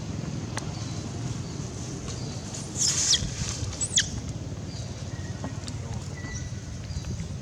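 Baby macaque giving short, high squeals that fall steeply in pitch, two of them about a second apart near the middle.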